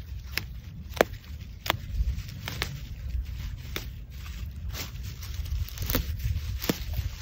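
Stems of marsh yellow cress snapping as they are picked by hand: about eight sharp snaps, roughly one a second, the loudest about a second in, with leaves rustling and a low steady rumble underneath.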